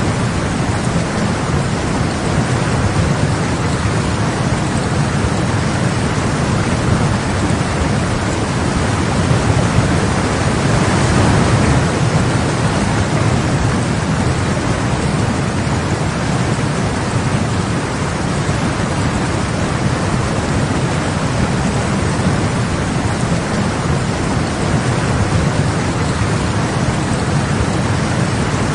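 Muddy floodwater of the Deg nullah in spate, rushing with a steady, loud roar.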